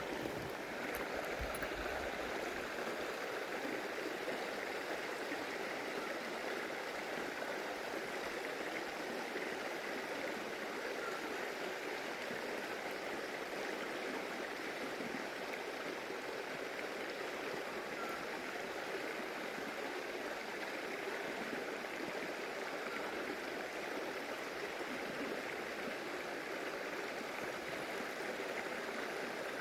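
Stream water running steadily over rocks, a constant rushing and gurgling.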